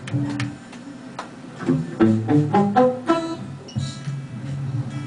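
Guitar noodling: loose single plucked notes and a short quick run of notes about two seconds in, over low held notes, rather than a full song.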